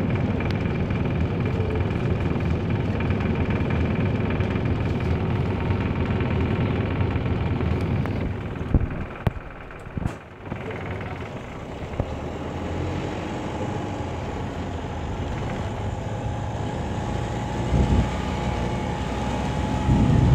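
Optare Solo SR single-deck bus heard from inside the saloon: the diesel engine idles steadily for several seconds, then the bus pulls away, the engine note building with a faint whine and growing louder near the end. A few knocks come in a quieter stretch about eight seconds in.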